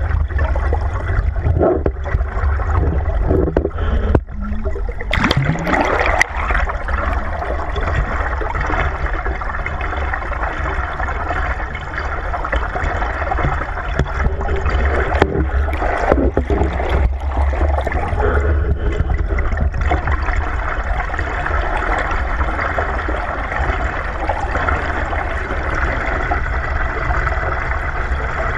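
Underwater water noise picked up by a GoPro in its waterproof housing on a pole: steady gurgling and rushing with a constant low rumble, and a few knocks about five seconds in and again around fifteen seconds in as the pole is moved.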